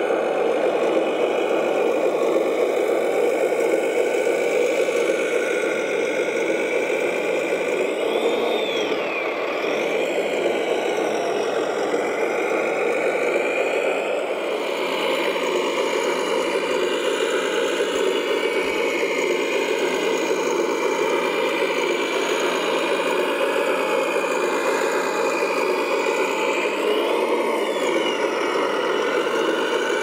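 Motors of radio-controlled model construction machines running steadily, with a whine that rises and falls in pitch about a third of the way in and again near the end.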